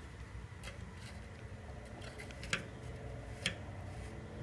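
Electric soldering gun working solder onto a tin-can patch on a motorcycle's steel fuel tank: three faint, sharp ticks spread over a low, steady hum.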